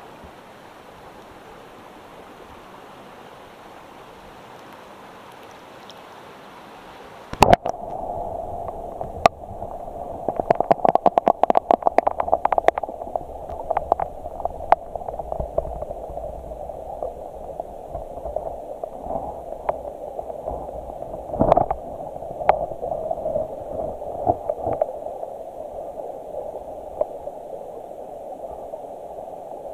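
Creek water running in the open air, then a sharp knock about seven seconds in as the action camera goes under the surface. From there the current sounds muffled and underwater, with a rapid flurry of clicks and knocks a few seconds later and another louder knock about 21 seconds in.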